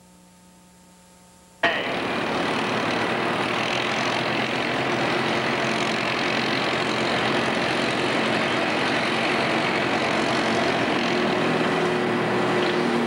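Faint steady hum, then after about a second and a half the loud, steady running of a super stock pulling tractor's turbocharged diesel engine cuts in sharply. A steady droning tone comes up over it near the end as the tractor smokes at the line.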